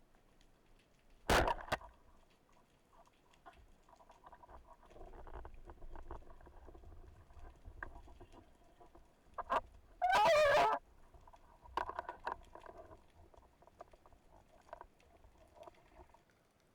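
Underwater sound heard through a submerged camera during a freedive: scattered clicks and crackles, with two loud short rushing bursts, one about a second in and a longer one about ten seconds in.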